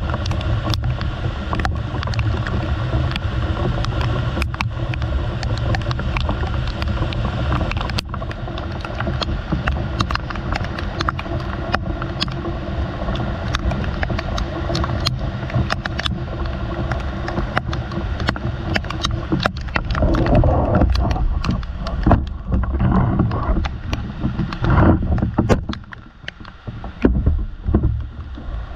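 Rain falling on corrugated metal roofing and leaves, a steady patter with a low rumble under it and many sharp drop strikes close to the microphone. From about twenty seconds in, it turns uneven, with louder rushes and brief dips.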